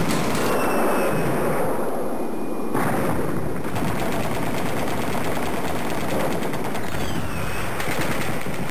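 Sound effect of sustained machine-gun fire, a continuous dense rattle of shots.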